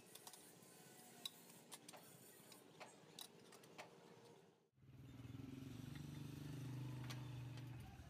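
Faint scattered metallic clicks as a steel tyre lever works a tractor tyre bead on its rim. About halfway through, after a brief drop-out, a steady low engine hum takes over.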